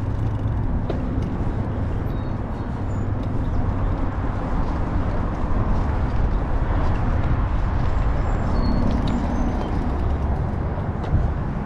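Steady low rumble of outdoor noise: wind on the microphone mixed with road traffic.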